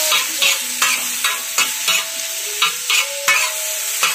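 A metal spatula scrapes and clacks on a large hot tawa as chicken and vegetable filling is stir-fried. Sharp strokes come roughly two to three times a second over a steady sizzle.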